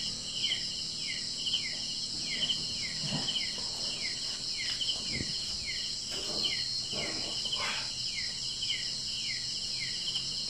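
Night insect chorus: a steady high-pitched shrilling with a short falling chirp repeating about twice a second, and a few faint knocks as parts and tools are handled.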